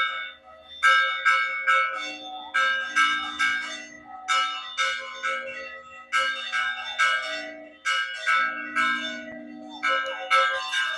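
Hand-rung church bells pealing in quick clusters of three or four strokes that repeat every couple of seconds, with a lower tone ringing on beneath them. It is the festive peal announcing the start of the village fiesta.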